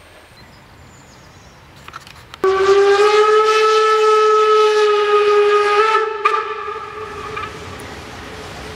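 Steam whistle of class 52 steam locomotive 52 1360-8 blowing one long blast of about three and a half seconds. The blast shifts slightly in pitch near its end and dies away, leaving the approaching train faintly heard.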